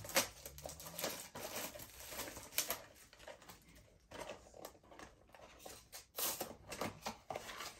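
Small cardboard blind box being torn open and its packaging handled: irregular rustling and crackling with a few sharper snaps, one just after the start and one about two and a half seconds in.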